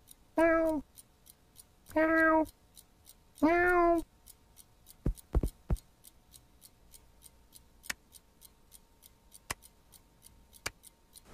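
A cartoon cat meows three times in quick succession. Then a clock ticks steadily, about three ticks a second, with a couple of soft low thumps about five seconds in.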